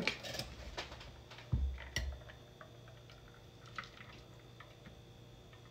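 Shaken cocktail of vodka and heavy cream strained from a copper shaker tin through a Hawthorne strainer onto a scoop of ice cream: a couple of dull knocks from the tin and strainer, then a quiet trickle with scattered drips.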